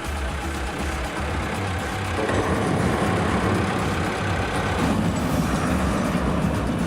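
A truck engine running steadily, getting louder about two seconds in.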